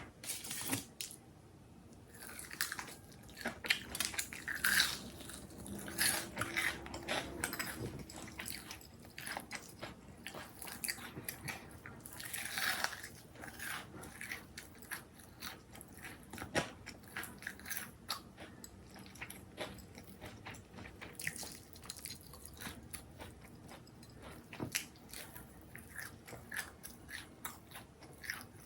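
Close-up chewing and crunching of crisp food, with irregular bites and crunches throughout.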